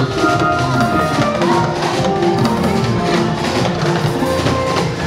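Live gospel band music with a drum kit playing under held melody notes.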